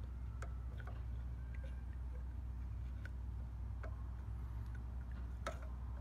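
Steady low hum with scattered faint clicks and ticks at irregular intervals, the sharpest about five and a half seconds in.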